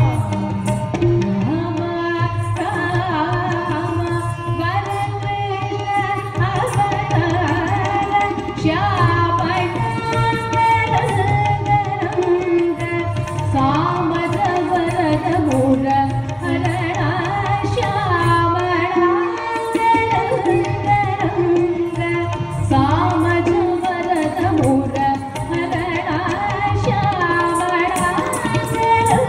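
Live Carnatic music: a woman singing a melodic line, accompanied by violin and steady mridangam drum strokes over a low drone.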